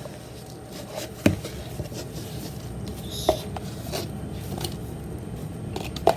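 Foam-bead slime being kneaded and mixed by hand, with a few sharp clicks and taps over faint handling noise.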